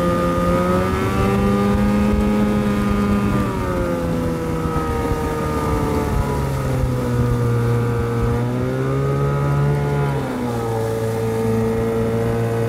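1981 Johnson Seahorse 15 hp two-stroke outboard running under way at speed, its engine note shifting up and down a few times, over the rush of the wake.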